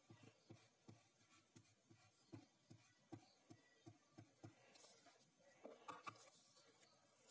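Faint, repeated rubbing strokes of a glue stick over a paper strip on card, about three a second.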